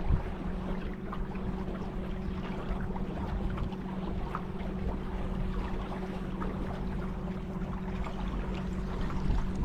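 Boat motor running steadily with an even hum, over water and wind noise.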